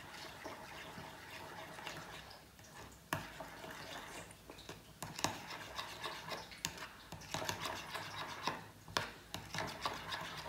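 A teaspoon stirring a thick mayonnaise-based sauce in a small bowl, scraping round the bowl with irregular light clicks of the spoon against its side.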